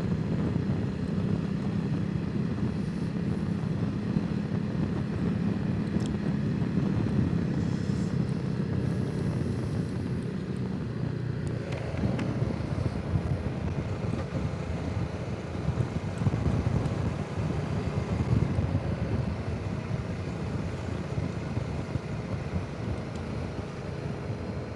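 Honda CRF300 Rally's single-cylinder engine running at low road speed, with wind noise over the helmet microphone. The engine note changes about halfway through and the sound eases off near the end.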